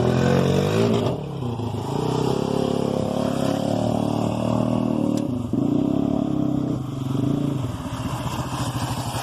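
Honda Rincon 680 ATV's single-cylinder engine through an HMF swamp exhaust, revving up and down with the throttle, easing off briefly about a second in and again twice in the second half, then settling into an even pulsing near idle at the end.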